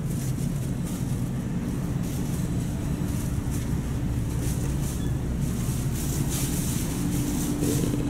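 Steady low drone of a large ferry's engines and machinery, heard from inside a passenger deck.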